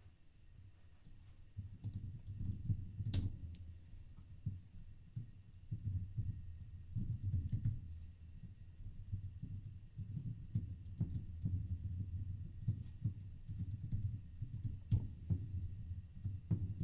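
Typing on a computer keyboard: irregular keystrokes in short runs with brief pauses.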